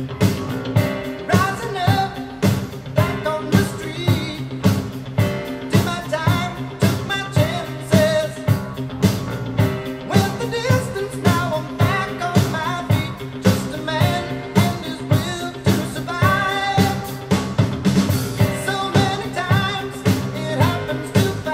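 A pop-rock song with a singer over a steady drum beat, played back through Polk Audio RTi A3 bookshelf speakers.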